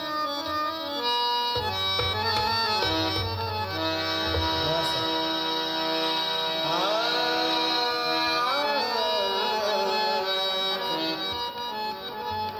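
Harmonium playing the held, sustained melody of a ghazal's instrumental introduction, accompanied by tabla with bending low bass strokes in the first few seconds.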